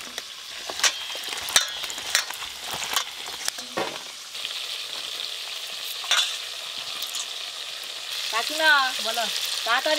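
Steady sizzle of small fish frying in mustard oil in a wok, with scattered sharp clicks and taps in the first few seconds. A short voice is heard near the end.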